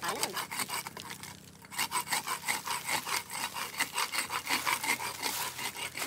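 Hand saw cutting wood in quick, rhythmic rasping strokes, about five a second, with a brief pause about a second and a half in.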